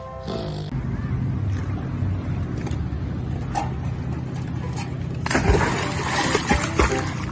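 A puppy jumps off a dock into water about five seconds in, with a sudden splash followed by churning, splashing water as it paddles. Before that there is a low steady rumble.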